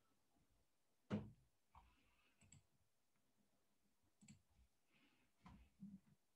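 Near silence with one sharp click about a second in, then a few faint ticks: computer mouse clicks.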